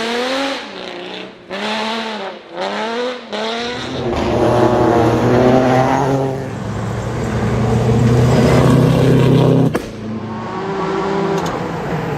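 Rally car engine revving hard: the pitch swoops up and down several times in quick succession for the first few seconds. It then pulls under sustained load, louder and deeper, with slowly climbing pitch, until it drops off sharply near the end and picks up again.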